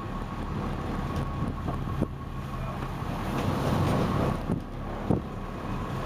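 Fishing boat's engine running steadily, with wind buffeting the microphone and a faint constant whine above it; two sharp knocks, about two seconds in and again near the five-second mark.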